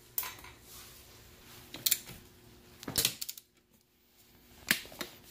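Sharp metallic clicks and clinks from hand tools on the engine-guard bolts as they are tightened with a torque wrench, four separate clicks spaced a second or more apart.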